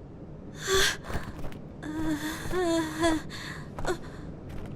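Wordless vocal sounds: a breathy gasp just under a second in, then a longer held cry with a wavering pitch from about two to three seconds in.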